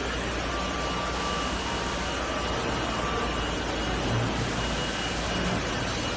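Steady workshop noise: an even hiss over a low hum, from machinery and fans running in a mould-making shop.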